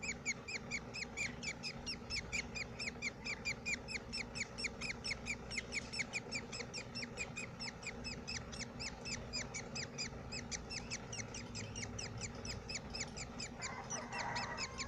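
Budgies chirping in a rapid, steady rhythm of short, falling calls, about six a second.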